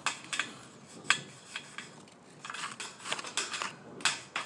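Sheet-metal Z-bar flashing being handled: a few sharp metallic clicks and taps, with a stretch of scraping a bit past the middle as the overlapped pieces rub together.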